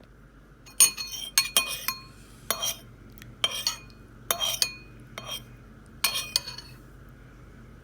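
A stirring utensil stirring vegetables in the pressure cooker's pot, clinking against the pot about a dozen times at an irregular pace. The clinks stop about six and a half seconds in.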